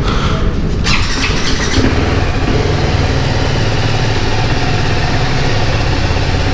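TVS Apache RR 310's single-cylinder, four-stroke, reverse-inclined engine being started in neutral. It catches about a second in and settles into a steady idle.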